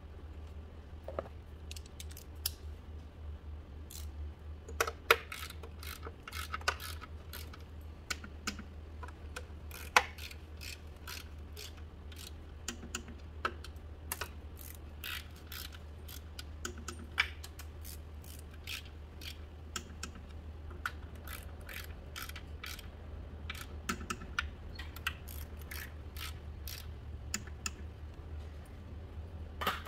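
Irregular small metallic clicks and taps of hand tools and parts being handled on the engine's upper intake manifold, with a few sharper knocks, over a steady low hum.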